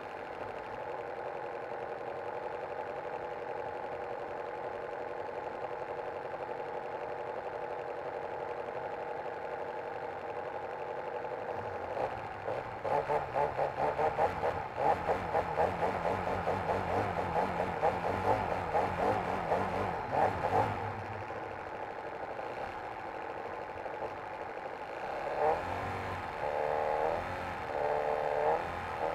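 O.S. FT-120 Gemini II twin-cylinder four-stroke glow engine of a large RC model plane, heard close from on board. It idles steadily, runs up louder with a fast uneven pulsing from about twelve to twenty seconds in, settles back to idle, then surges in short bursts near the end as the plane taxis on the ground.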